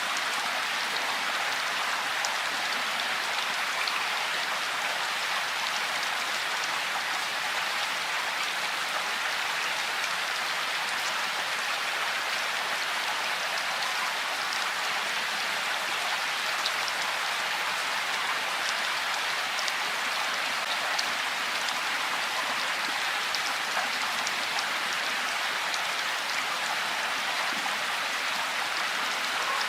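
Steady rain falling: an even hiss with faint, scattered drop ticks, unchanging throughout.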